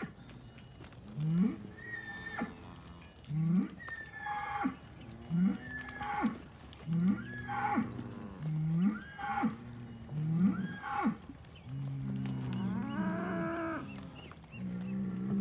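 Young cattle bawling over and over, short calls that rise in pitch, about one a second, then a longer drawn-out moo about three-quarters of the way through.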